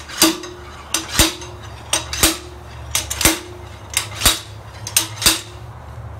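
Slide hammer with a pilot bearing puller being yanked against its stop, pulling on the pilot bearing in an LS1 V8's crankshaft: a sharp metal-on-metal clank with a short ring about once a second, six strokes, each a quick double knock.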